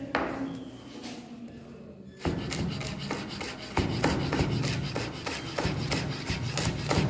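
Chef's knife shredding cabbage on a wooden cutting board: a quick, continuous run of chopping strokes, each blade tapping through onto the board. The strokes start about two seconds in.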